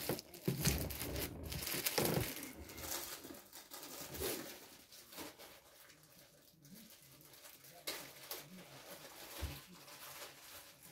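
Packaging handled by hand: a plastic bag and the cardboard box's flaps rustle and crinkle. The rustling is loudest for the first couple of seconds, then thins to faint scattered rustles and light knocks.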